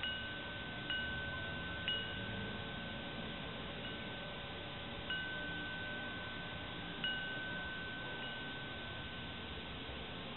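Homemade metal-tube wind chime, with a glass Dr Pepper bottle hung among the tubes as its striker, ringing in the breeze. About seven irregular strikes, each a clear high note that rings on for several seconds, over a steady hiss.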